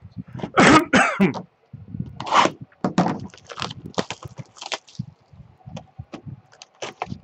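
Two loud noisy bursts about a second in, then a cardboard hobby box of trading cards is handled and set down on a table, with a run of short scrapes, rustles and knocks.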